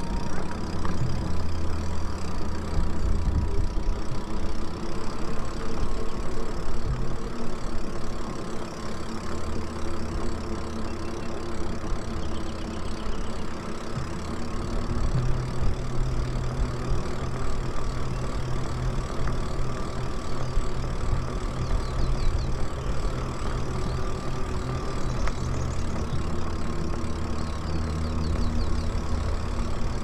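Riding noise on an electric bike: wind rumbling on the microphone and tyres on a concrete path, with a faint steady whine from the electric motor.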